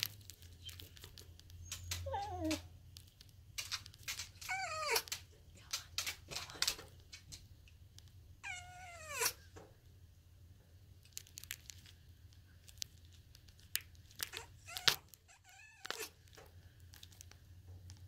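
Female Eclectus parrot giving about four drawn-out calls that slide down in pitch while laying an egg, with scattered light clicks and rustles between them.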